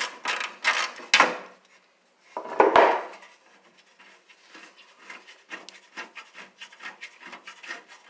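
Hand ratchet wrench working a screw loose in a table saw: a run of short clicks, a louder scraping rub about two and a half seconds in, then quicker, fainter clicking.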